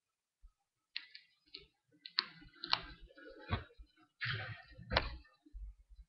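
A handful of irregular light clicks and knocks, some with a dull thump underneath, spread over several seconds.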